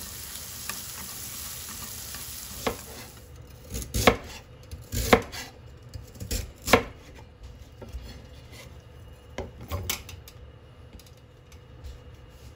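A knife chopping on a cutting board in about ten irregular, sharp strikes, most of them in the middle stretch. A steady hiss fades out about three seconds in.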